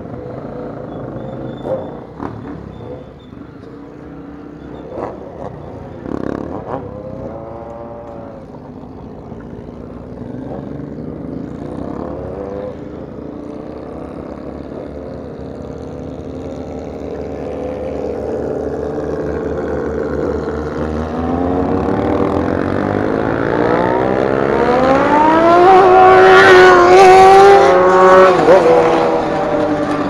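Motorcycle engines: a bike revs up and down about a third of the way in, then the engine pitch climbs and the sound grows steadily louder as the motorcycle accelerates, loudest near the end.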